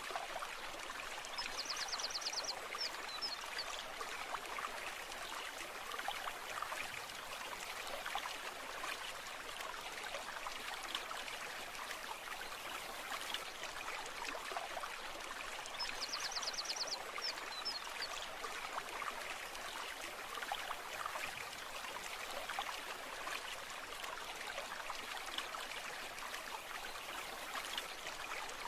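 Small stream babbling and trickling steadily over stones. A short high trill, like a bird or insect call, cuts through about a second and a half in and again about sixteen seconds in.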